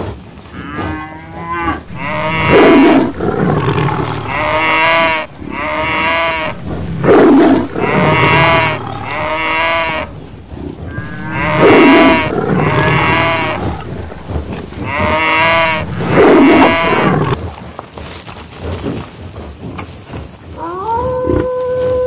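Cattle mooing, as a sound effect: a string of loud, wavering moos that repeat several times. A steadier, held moo begins near the end.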